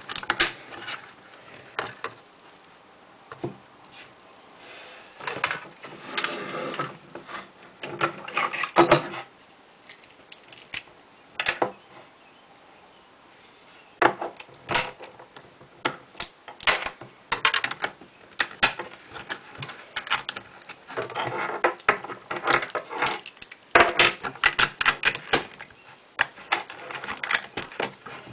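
LEGO bricks being pressed onto studded plastic baseplates and handled: irregular sharp plastic clicks and snaps, with a few stretches of rattling.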